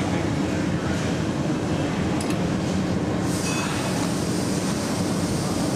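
Steady roar of a gas-fired glory hole, the glassblower's reheating furnace, its burner running flat out. A higher hiss joins about three seconds in.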